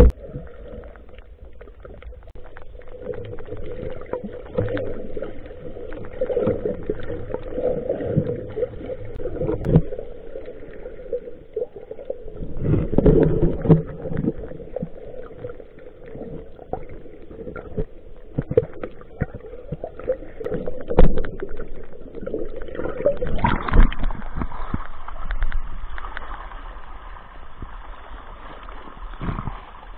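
Water sloshing and splashing, muffled through an action camera's waterproof housing while swimming in the sea, with scattered knocks; a little over twenty seconds in it turns to a brighter rushing hiss.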